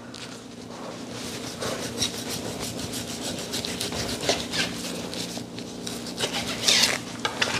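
A kitchen knife sawing back and forth through raw beef sirloin on a cutting board, in a run of repeated strokes.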